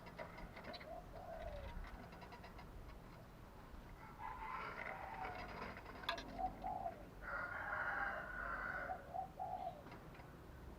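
Spotted dove cooing in short, curved, repeated coo notes. Louder calls, harsher and higher, come over it about halfway through and again near the end.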